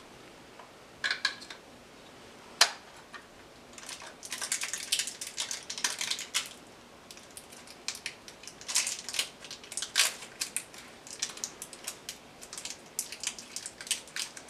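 Hands handling small plastic parts and packaging: scattered clicks with a sharp one about two and a half seconds in, then a run of scratchy clicks, scrapes and rustling.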